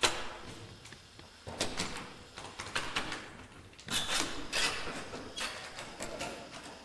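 A series of irregular knocks and scrapes, the sharpest right at the start and several more spread through the middle.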